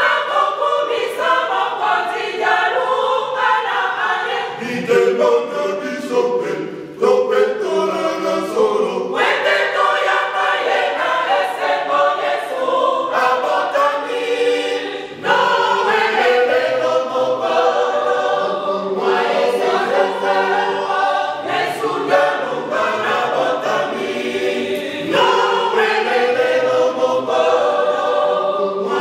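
Mixed Kimbanguist church choir of men and women singing a hymn unaccompanied, in phrases with brief breaks about five, seven and fifteen seconds in.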